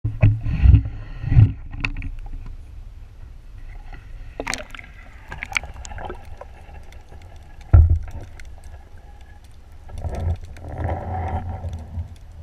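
Water sloshing and bumping against a GoPro camera's waterproof housing as it is put in the water and held under, muffled, with several heavy thumps in the first two seconds and again about eight seconds in, and a few sharp clicks a few seconds in.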